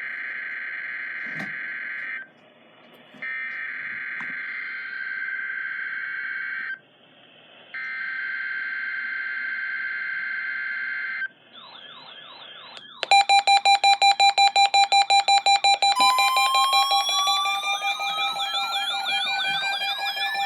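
Emergency Alert System test signal. It opens with three harsh, buzzy data bursts of the header code, with short gaps between them. It then goes into alert tones: a warbling tone, then loud, rapid pulsing beeps, joined near the end by rising siren-like sweeps.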